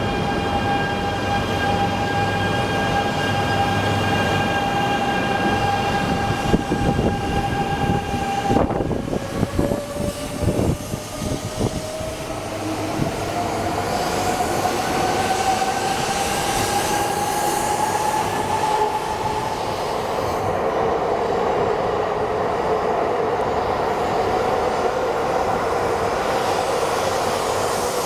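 Komachi Shinkansen train: a steady electric hum, then a run of knocks, then a motor whine that climbs slowly in pitch as the train gathers speed and holds steady after that.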